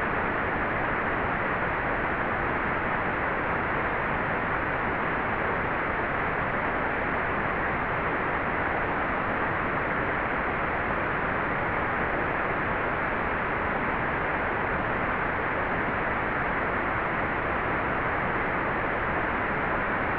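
Hair dryer running steadily: an even, unbroken rush of air with no audible pitch and a dull, muffled top end, used as white noise.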